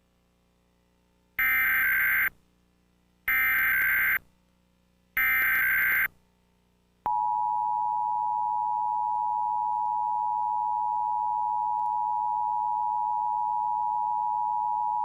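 Emergency Alert System header: three bursts of SAME digital data tones, about a second each and evenly spaced, then the steady two-tone attention signal (853 and 960 Hz) sounding from about seven seconds in. It marks the start of an EAS required monthly test.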